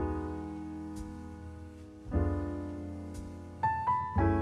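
Slow background piano music: a chord struck about every two seconds, each ringing and fading away, with a few higher single notes just before the last chord.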